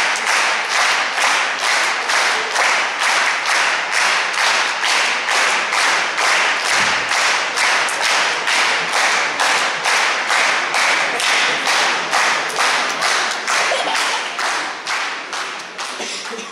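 Concert audience applauding, clapping together in a steady rhythm. The clapping fades away near the end.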